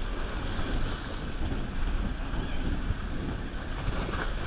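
Wind buffeting the microphone over the wash of sea water against a boat's hull: a steady rushing noise with a low rumble.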